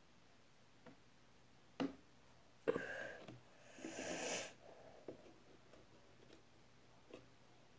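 A few small clicks and knocks of makeup items being handled, the sharpest a little under three seconds in, followed by a brief rustling hiss.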